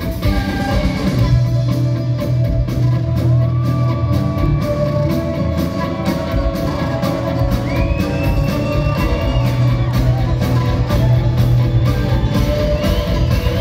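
Rock band playing live in a concert hall, heard from the audience: electric guitars, bass, drums and keyboards with a flute, loud and continuous.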